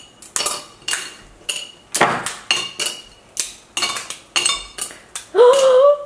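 Dalgona sugar candy being snapped apart by hand, with pieces clicking onto small ceramic plates: a steady run of sharp clicks, two or three a second, some with a brief ring from the plates. Near the end a woman exclaims "wow" loudly.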